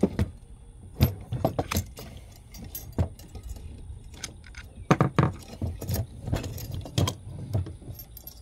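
Irregular metallic clinks and clanks from metal parts being handled, during a cable-crimping job with a hydraulic lug press.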